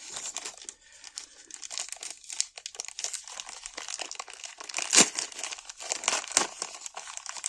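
Packaging being handled and unwrapped by hand: irregular crinkling and rustling with small clicks, and one louder crackle about five seconds in.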